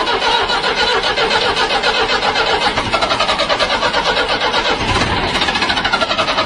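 A loud, engine-like rapid pulsing that starts suddenly and runs on without a break.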